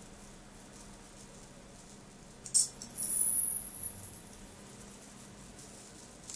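Flyback-transformer Jacob's ladder running: a thin high-pitched whine that drifts slowly upward over a faint steady hiss. About two and a half seconds in, the sound drops out for a moment and comes back with a sharp snap as the arc breaks and strikes again.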